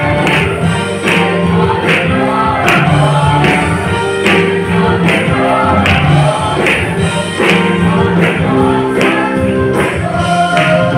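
Mixed choir of men and women singing a gospel song through microphones, over an accompaniment with a steady beat.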